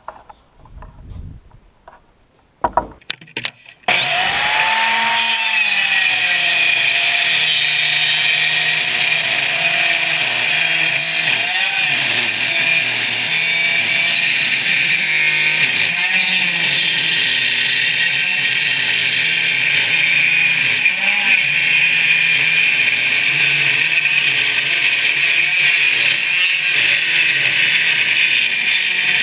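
Table saw switched on about four seconds in after a few clicks, spinning up and then running steadily while notching pine boards fed against the fence with the blade raised. Its pitch dips briefly three times as the blade takes the load of a cut.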